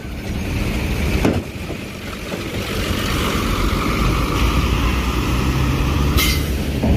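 Diesel engine of a large bus or truck running as it drives past, growing louder about halfway through, with a short hiss near the end.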